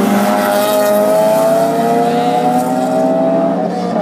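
Car engine accelerating hard, its pitch climbing steadily, then a quick gear change about three and a half seconds in before it pulls again.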